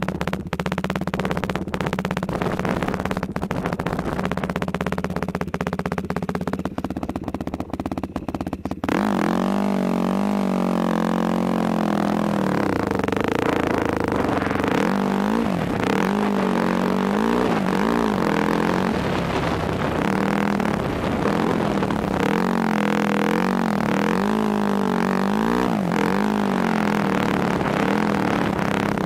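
Yamaha YFZ quad's engine running at a steady low speed, then, about nine seconds in, revving louder and rising and falling in pitch again and again as it is ridden.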